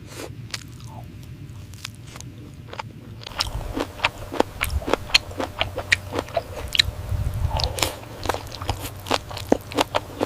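Close-miked chewing and biting of octopus: irregular clicks from the mouth, sparse at first, then coming thick and fast from about three seconds in.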